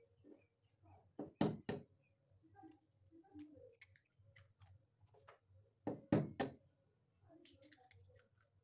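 Two hen's eggs cracked open over a glass bowl: a pair of sharp taps of shell on a hard edge about a second and a half in, then three more about six seconds in, with faint crackling of shell being pulled apart between.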